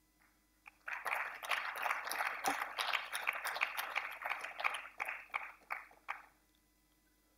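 Audience applauding for about five seconds: many hands clapping, starting about a second in and dying away near the end.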